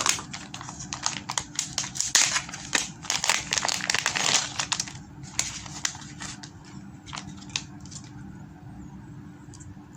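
Plastic packaging crinkling and rustling as it is handled and unwrapped: dense for about the first five seconds, then only a few scattered crackles and ticks.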